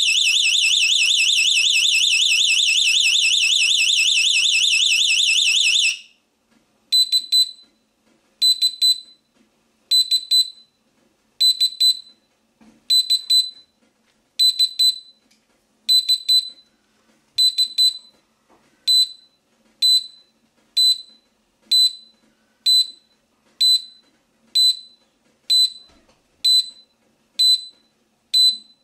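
Plug-in household gas detector alarming at propane: a loud, continuous, rapidly warbling high-pitched tone. About six seconds in it stops and gives way to short high beeps repeating roughly once a second, as the propane clears and the alarm winds down.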